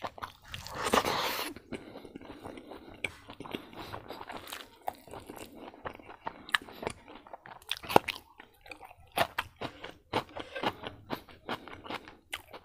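Close-miked chewing of a mouthful of rice, kidney beans and meat eaten by hand, with many short wet smacks and crunches. Just after the start, as the handful goes into the mouth, there is a loud noisy rush about a second long, the loudest moment.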